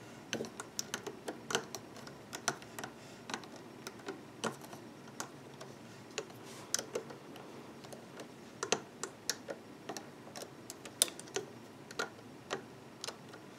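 Light, irregular clicks and taps of a metal loom hook and fingers against the plastic pegs of a rubber-band loom board, as rubber bands are hooked and pulled over the pegs.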